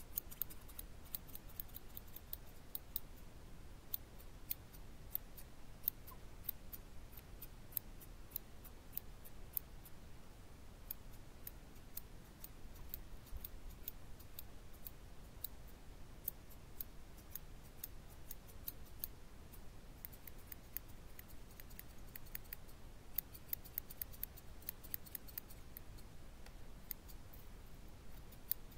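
Scissors snipping hair: many short, sharp snips in irregular runs, at times several a second, over a faint low hum.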